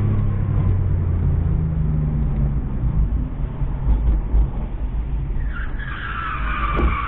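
Car engine hum and road rumble from a moving car on a freeway. About five and a half seconds in, tyres screech for about two seconds, a high wavering squeal that slides slightly down in pitch.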